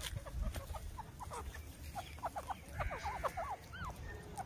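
Grey francolin giving soft clucking calls: a quick, irregular series of short notes, thickest past the middle.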